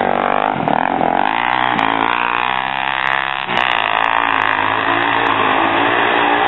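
Quad bike engine revving up and down as it passes close and pulls away, then a dirt bike's engine running as it rides past and off down the dirt track, from about halfway through.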